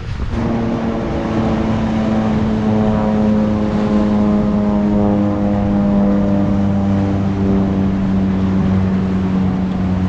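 A plane passing by: a steady engine drone that sets in about half a second in and slowly falls in pitch as it goes past.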